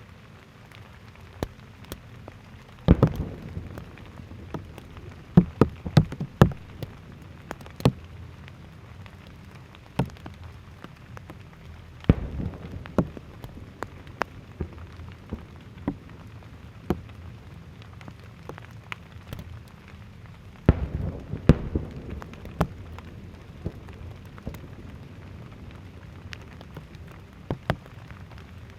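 Aerial fireworks shells bursting in a rapid series of sharp bangs over a steady crackle. The heaviest clusters of bangs come about three seconds in, again around six seconds, and around twenty-one seconds.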